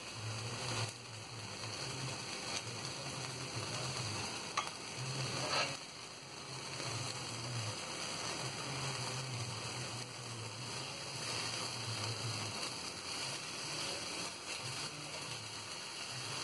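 Oil-brushed marinated boneless chicken pieces sizzling steadily on a wire grill over an open gas flame. A couple of light clicks of metal tongs on the grate come about four and a half and five and a half seconds in.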